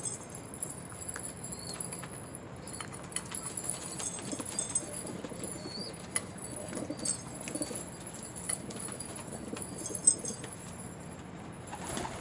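Domestic pigeons moving about: scattered wing flaps and light taps, with low cooing mostly in the middle, and one sharp tap about ten seconds in.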